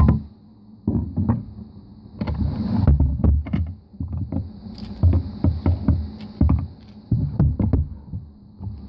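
Thick, glossy slime being squeezed, pressed and folded by hand, giving a run of irregular sticky clicks and pops with soft squelching thuds.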